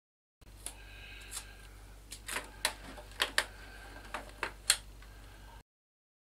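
Thin celluloid sheet being cut and handled for a template: a string of irregular sharp clicks and snaps, the loudest near the end, over a low hum.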